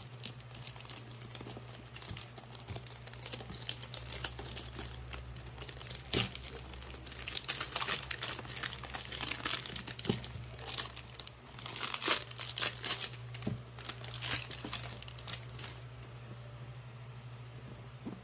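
Plastic wrapping on a perfume box crinkling and tearing in irregular spells as hands unwrap and turn the box, busiest in the middle, over a faint steady low hum.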